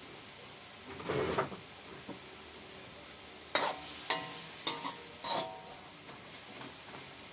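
Metal ladle stirring cassava leaves in a metal wok: a scrape about a second in, then four ringing clinks of ladle on wok about half a second apart, over the faint hiss of the leaves sizzling.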